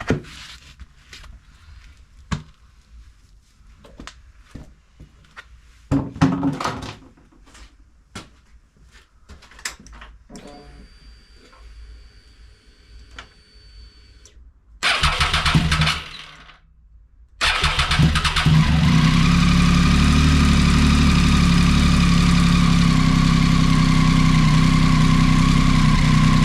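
A 2014 Triumph Tiger 800's three-cylinder engine being started after an oil change: a few clicks and knocks, a short first start attempt about fifteen seconds in that stops, then a second start about two seconds later that catches and settles into a steady idle.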